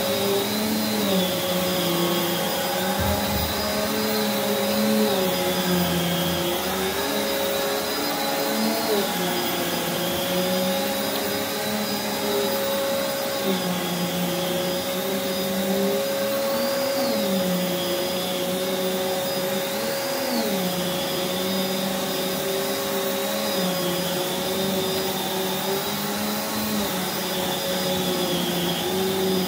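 Prolux X8 Elite backpack vacuum running steadily with its EBK360 power nozzle, vacuuming carpet. The motor's whine dips and rises in pitch every couple of seconds, with two sharp rises past the middle.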